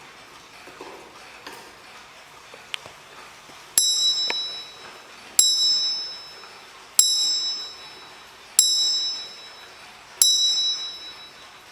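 Mantel clock striking five times on a small, high-pitched bell, one strike about every second and a half, each ringing and dying away before the next. A few faint clicks come before the first strike.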